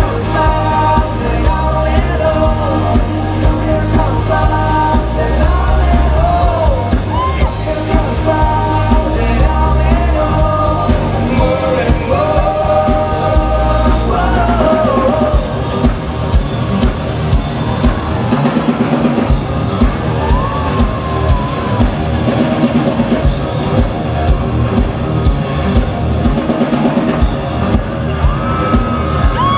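A live rock band playing: a lead vocal sung over drum kit, guitars and bass through a PA, with the drums keeping a steady beat.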